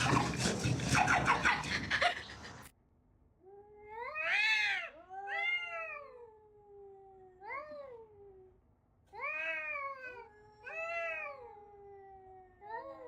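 A cat meowing repeatedly: about six long, wailing meows, each rising then falling in pitch, a second or two apart. Before them comes a loud, noisy, scuffling stretch that cuts off abruptly a few seconds in.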